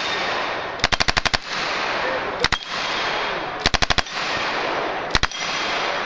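Submachine gun firing short full-auto bursts: a rapid burst of about six or seven rounds about a second in, a single shot near the middle, a burst of about five rounds a little later and one more shot near the end. A steady rushing noise fills the gaps between bursts.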